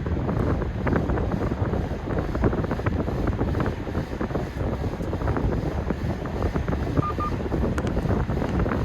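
Wind buffeting the microphone in dense, crackling gusts over the low rumble of a car driving along the road. Two short beeps come about seven seconds in.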